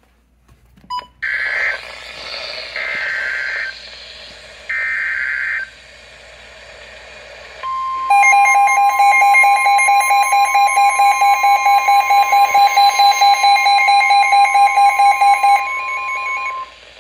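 NOAA weather radios receiving a severe thunderstorm warning. First come three roughly one-second bursts of buzzing SAME header data over radio hiss. Then, about eight seconds in, the steady 1050 Hz warning alarm tone starts, with a radio's loud rapid alert beeping over it, about four beeps a second. The beeping stops shortly before the tone ends.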